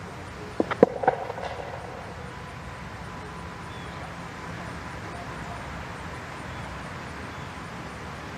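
Steady outdoor background noise, with three sharp clicks close together about a second in.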